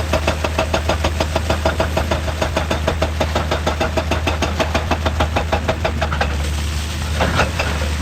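Heavy machinery running with a steady low hum and a fast, even knocking of about five beats a second, which stops about six seconds in; a couple of separate clinks follow.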